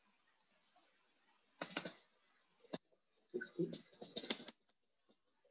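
Typing on a computer keyboard: quick keystrokes in short bursts, then a few single clicks near the end.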